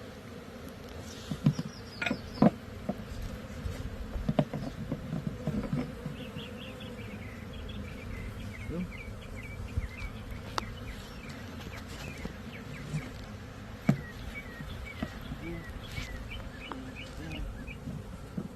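A swarm of honeybees buzzing steadily around the hive and swarm trap, with several sharp knocks from handling the equipment, the loudest early on and one near the end.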